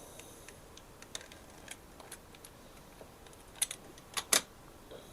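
Scattered light clicks and taps from handling small parts and cutting heat-shrink tubing, with a few sharper clicks, the loudest about four seconds in.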